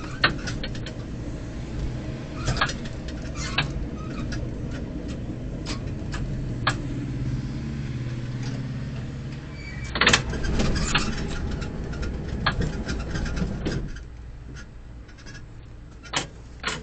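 Tram heard from inside its driver's cab: a steady low rumble with scattered clacks and rattles. About ten seconds in there is a denser burst of clatter with a short squeal, and about fourteen seconds in the rumble drops away.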